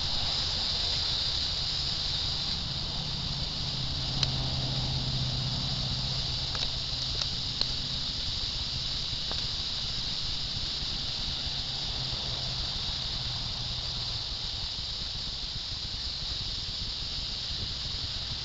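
Steady high-pitched drone of insects, unbroken throughout, with a couple of faint sharp clicks about four and seven seconds in.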